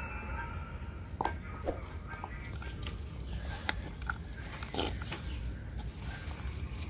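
Hands squeezing and kneading a grated boiled potato and spice mixture in a bowl: soft squelching with scattered light clicks over a steady low rumble.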